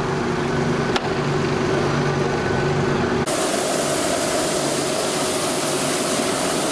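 A cheese-wheel rotating machine runs with a steady hum as a Parmigiano Reggiano wheel spins between its rollers. A little over three seconds in, the sound switches abruptly to a steadier, fuller rushing hiss: a gas torch flame played on the spinning rind, over the machine.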